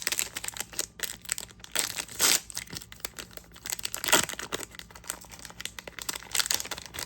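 A trading card pack's wrapper being torn open and crinkled in the hands: a run of crackling rustles with a few louder bursts about two, four and six and a half seconds in.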